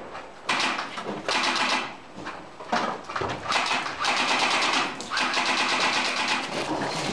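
Airsoft rifles firing full-auto in several bursts, each a rapid stream of clicks, the longest bursts in the second half.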